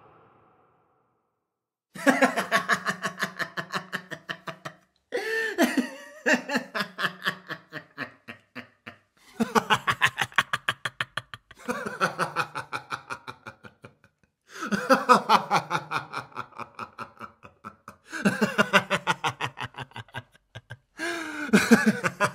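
A man laughing heartily in several separate bouts of quick ha-ha pulses, starting about two seconds in after a brief silence.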